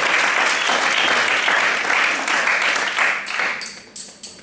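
Audience applauding in a theatre, the clapping dying away about three and a half seconds in, then a few sharp clicks with a metallic ring.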